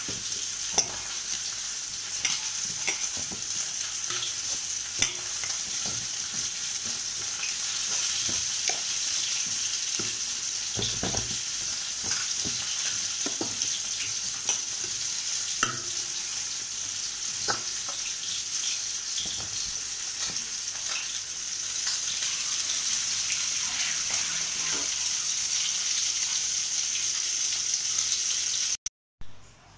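Hand squishing and kneading a wet mixture of raw rohu fish roe and chillies in a steel pan, small wet clicks and squelches over a steady sizzling hiss. The sound cuts out briefly near the end.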